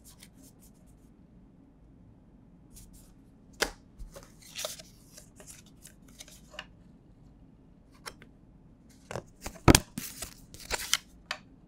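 A smartphone's retail box and packaging being handled: scattered sharp clicks, taps and short rustles of cardboard and plastic, with a burst of clicks about nine to eleven seconds in, the sharpest near ten seconds.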